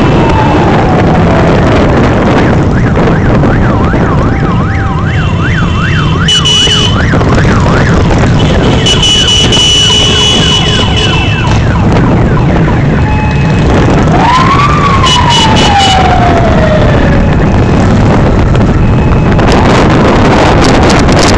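Motorbike engine running under way with wind rumbling on the microphone. Over it a siren sounds: a fast rising-and-falling warble from a few seconds in, then a single long wail that rises and slowly falls about two-thirds of the way through.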